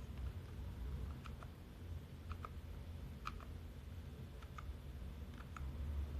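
Keys on a budget gaming keyboard being pressed one at a time, short clicks about a second apart and often in quick pairs, over a steady low hum.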